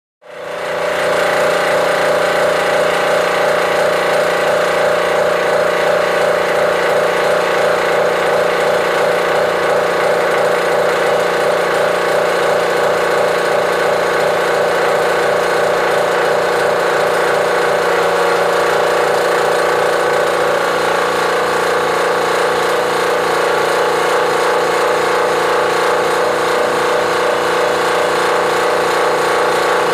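Air compressor running steadily: a loud, even hum with a fast, fine pulsing. It starts within the first second.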